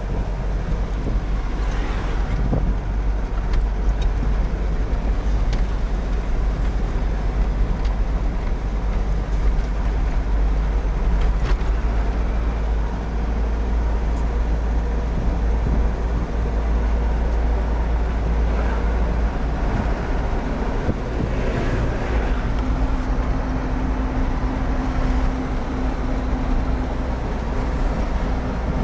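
Engine and road noise heard inside the cab of a large vehicle while driving: a steady low rumble. A steady low hum from the engine stands out more clearly from about two-thirds of the way through.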